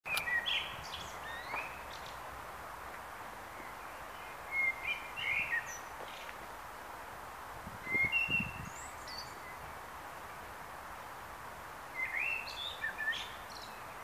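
Common blackbird (Turdus merula) singing: four short song phrases a few seconds apart, over a steady background hiss.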